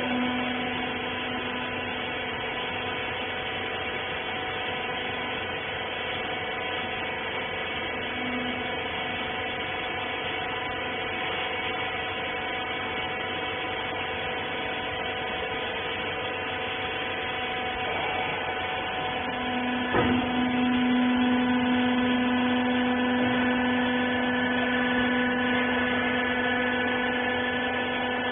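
Hydraulic power unit of a wiper bagging baler, its electric motor and pump running with a steady hum. About twenty seconds in there is a knock, after which the hum grows louder.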